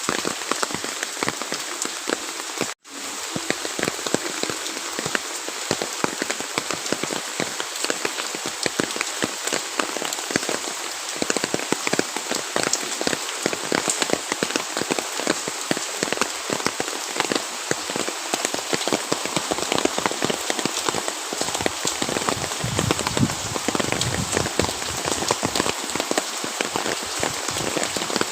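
Steady rain falling, with countless separate drops hitting a surface. It cuts out for a split second near three seconds in.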